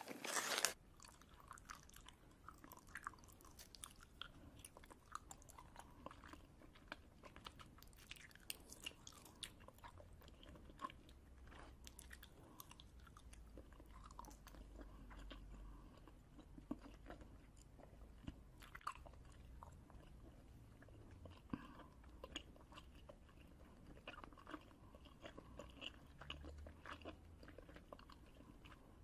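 Faint, close-up chewing of crunchy snack food: irregular small crunches and bites, with one louder crunch right at the start.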